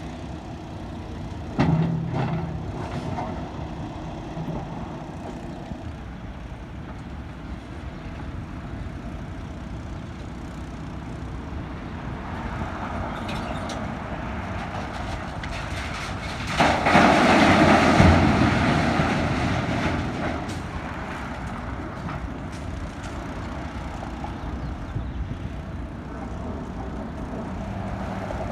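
Heavy excavator's diesel engine running steadily, with a sharp knock about two seconds in. Past the middle, a loud rush of noise lasting about three seconds as a bucketful of debris drops into the dump truck's bed.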